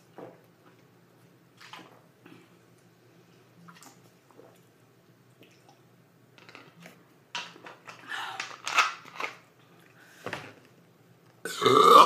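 Faint gulping as a bottle of carbonated soda is chugged, then louder mouth and throat sounds from about seven seconds in, and a loud burp just before the end, brought up by the swallowed fizz.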